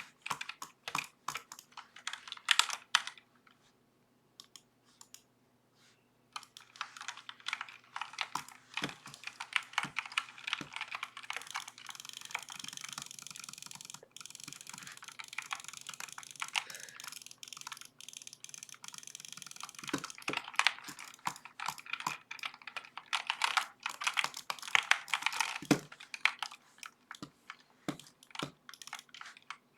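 Typing on a Redragon K552 mechanical keyboard: runs of sharp keystroke clicks, a pause of about three seconds near the start, then fast, dense typing.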